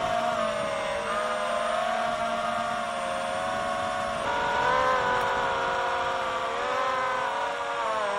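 A 5-inch FPV quadcopter on a 4S battery hovering, its motors and propellers whining with several steady tones. About four seconds in, the sound switches from the quad on standard propellers to the same quad on Foxeer Donut 5145 toroidal propellers, whose whine is pitched lower and sounds less harsh.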